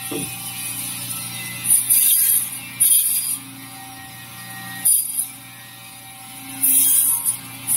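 Electric band saw running with a steady hum, its blade cutting through frozen fish in four short, loud, hissing rasps.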